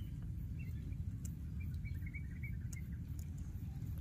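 A handful of faint, short, high chirping calls in quick succession about halfway through, over a steady low rumble.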